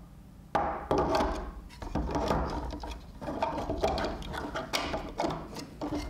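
3D-printed PLA plastic parts clicking and rattling as the shredder's blade shafts are set into the printed housing and worked by hand, the printed spur gears meshing. The sound comes as a run of irregular clicks and short clattering bursts.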